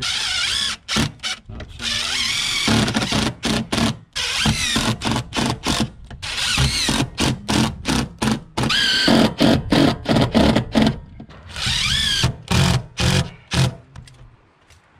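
DeWalt cordless drill driving screws through a metal Z channel into standing seam metal roof panels. The motor whines up in several longer runs and many short trigger pulses, then stops about fourteen seconds in.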